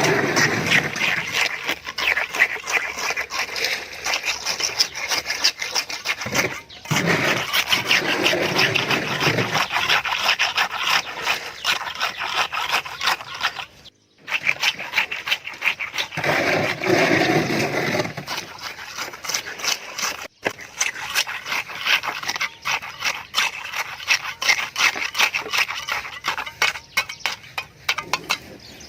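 Fast, repeated scraping of a hand tool working a hard, gritty surface, in several stretches that break off abruptly, with a heavier, lower scrape at two points.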